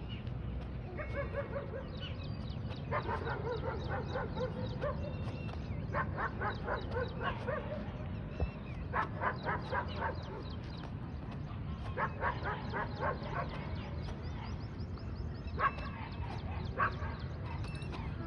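A dog barking in about six bouts of quick, repeated calls, over a steady low background hum.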